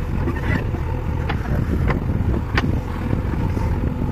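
JCB 3DX backhoe loader's diesel engine running steadily under load while the backhoe arm works, with three sharp clicks in the middle of it.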